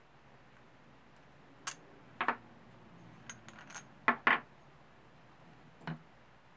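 A steel bolt clinking against a cast aluminium intake manifold and then set down on a wooden workbench: a few short metallic clicks and knocks, the loudest two close together about four seconds in, with a last light click near the end.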